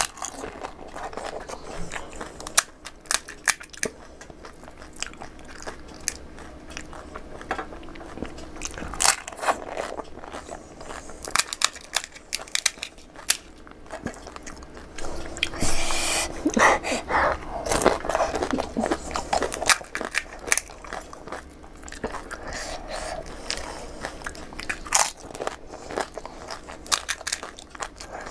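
Crisp pani puri shells crunching as they are bitten and chewed, with sharp little cracks as the hollow fried shells are broken open by hand.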